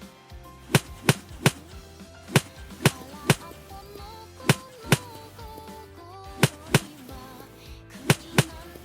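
Sharp knocks of a tool striking wood, about twelve in all, in quick groups of two or three, over background music with a melody.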